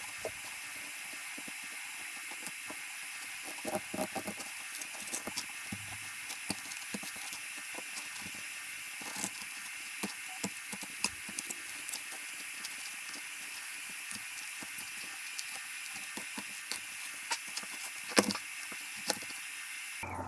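A knife scraping, cutting and tapping on a plastic cutting board while a fish is cleaned and cut up, making many short, irregular clicks and knocks with some crinkling of foil. A sharper knock comes near the end. A steady hiss runs underneath.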